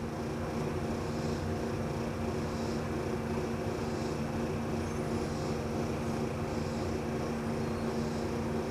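Steady mechanical hum of a background machine running, with a constant low tone.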